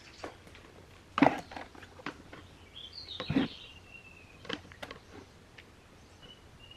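A few scattered knocks and taps, with a short high chirp that falls in pitch about three seconds in and another brief chirp near the end.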